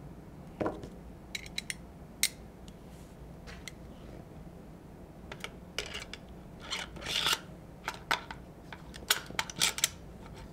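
Small metal shotgun parts clicking and clinking as the bolt of an Eternal Attacker FX-3 is fitted back in place by hand during reassembly. There is a short scraping slide about seven seconds in and a quick run of clicks near the end.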